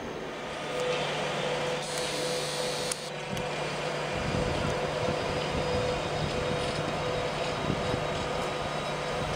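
ÖBB class 1144 electric locomotive running past at low speed on a shunting move, with a steady electric hum.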